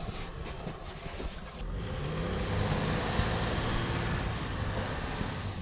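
Toyota Land Cruiser 100's 4.2-litre diesel engine working hard as the SUV pushes through deep snow; the revs come up about two seconds in and are held.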